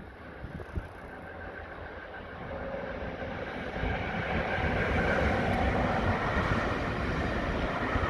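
Freight train of container and tank-container wagons approaching and rolling past beneath. The rumble of wheels on rail grows louder over the first four seconds, then holds steady as the wagons go by. A couple of low wind buffets hit the microphone near the start.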